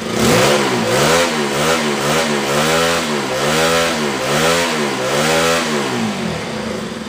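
Warmed-up motorcycle engine, running on oil treated with EGB safety engine lube, revved in about eight quick throttle blips, its pitch rising and falling with each one, then dropping back toward idle near the end.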